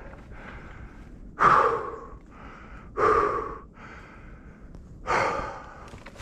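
A person breathing hard from exertion. Three loud gasping exhales come about every one and a half to two seconds, with softer inhales between them.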